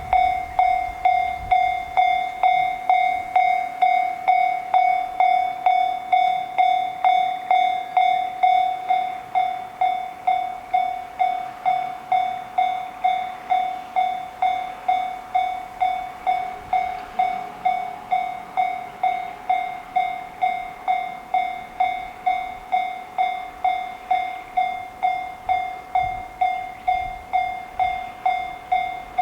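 Japanese railroad crossing alarm bell ringing its 'kan-kan' strikes. It starts abruptly and repeats evenly, just under two strikes a second, warning that a train is coming.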